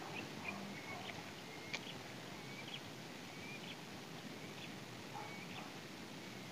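Outdoor ambience: short, high chirps from a small creature repeating about twice a second, over a steady low rush.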